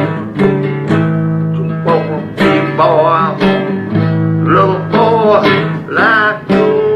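Blues music: an acoustic guitar strummed in repeated chords, with a wavering melody line over it in the second half.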